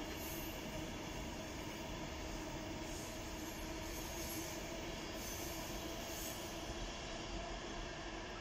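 A train running on the tracks out of view: a steady rumble with a low hum and brief high wheel squeals about once a second.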